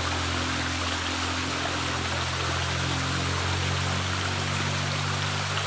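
Water running steadily through a culvert, a constant rushing, with soft background music of held low notes underneath.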